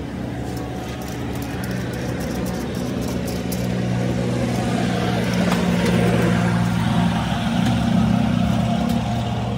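A motor engine running steadily, slowly growing louder.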